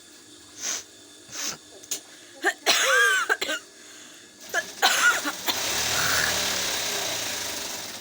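A person sneezing: two quick sniffs, then loud voiced sneeze bursts about three and five seconds in, followed by a long hissing blow that slowly fades.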